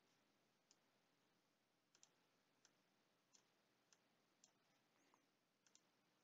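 Faint computer mouse clicks, about ten of them, single and in quick pairs at uneven intervals, over near-silent room tone.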